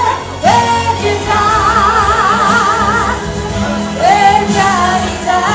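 A woman singing into a handheld microphone over backing music. About a second in she holds a long note with a wide vibrato, and near the start and again near the end she slides up into a note.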